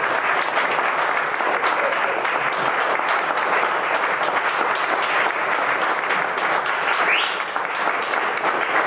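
Audience applauding steadily, a dense patter of many hands clapping, with one brief rising cry from the crowd about seven seconds in.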